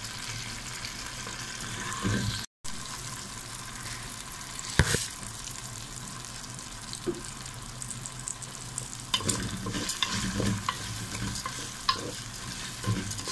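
Raw rice grains frying in hot fat in a nonstick pan, sizzling steadily while a wooden spoon stirs and scrapes them around, with one sharp knock about five seconds in. The rice is being toasted before the water goes in.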